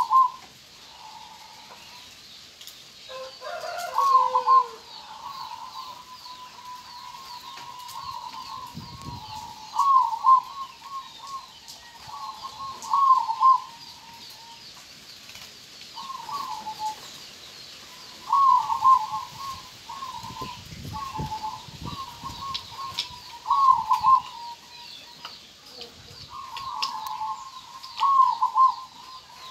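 Zebra dove (perkutut) cooing: short phrases of quick coos, repeated about every two to three seconds.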